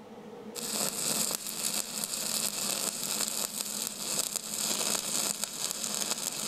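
Steady crackling hiss that starts abruptly about half a second in, over a faint low hum.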